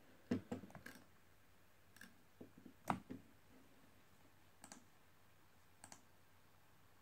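Scattered clicks of a computer's pointer button as images are clicked through: a quick cluster in the first second, then single clicks, the loudest one just before the middle.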